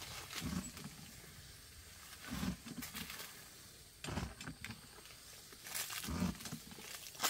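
Rustling and brushing of grass, leaves and clothing in bursts about every two seconds, as a person works a backpack crop sprayer through the undergrowth.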